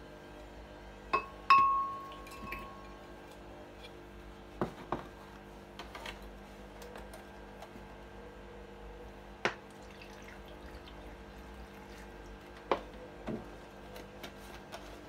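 Strawberries dropped into a glass blender jug, knocking against the glass in scattered clinks, the loudest about a second and a half in with a short ringing tone after it.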